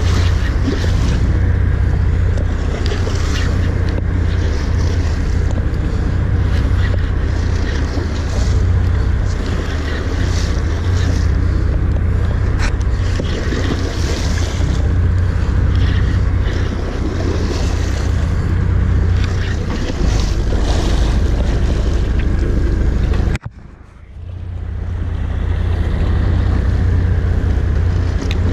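Heavy wind buffeting the microphone over the wash of open-sea water along a boat's hull. The noise drops away abruptly for about a second near the end, then builds back.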